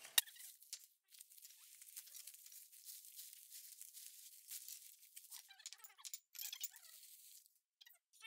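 Faint crinkling and tearing of packaging as new dishes are unwrapped, with one sharp click just after the start.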